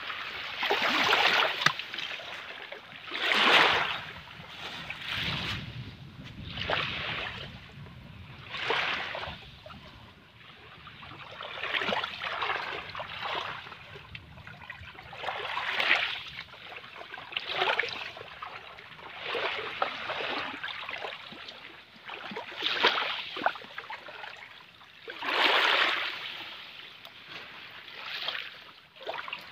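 Small waves washing in over sand and shell grit at the water's edge. Each surge is a fizzing wash lasting about a second and comes every two seconds or so.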